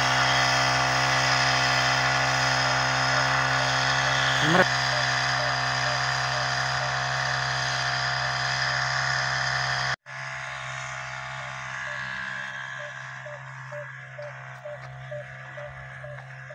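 The small engine of a motorized backpack sprayer runs steadily at constant speed, misting pesticide over a wheat crop. About ten seconds in the sound cuts off abruptly and comes back quieter and more distant.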